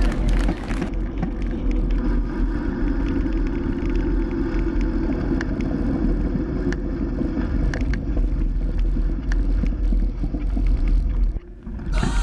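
Wind buffeting the microphone of a camera moving fast along a road, a steady low rumbling rush. It drops out briefly near the end.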